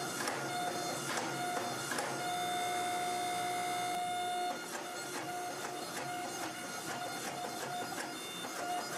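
Hydraulic forging press running with a steady whine as its flat dies squeeze a glowing steel billet, with scattered clicks and crackles. About halfway through the whine drops and turns intermittent.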